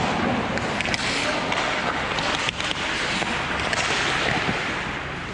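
Ice hockey play close to the goal: skate blades scraping and hissing on the ice, with a few sharp clacks of sticks and puck.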